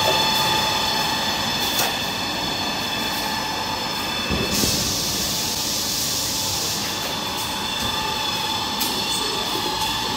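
Tissue-paper converting machinery running steadily: a continuous mechanical din with several steady whining tones. A hiss comes in about four and a half seconds in and lasts a couple of seconds.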